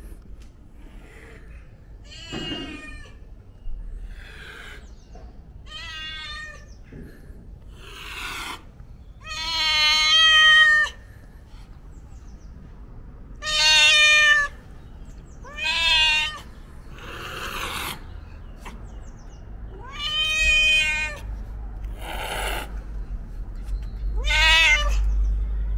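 A ginger-and-white stray tom cat meowing loudly and repeatedly, about a dozen calls, several drawn out over a second or more, the longest and loudest about ten seconds in.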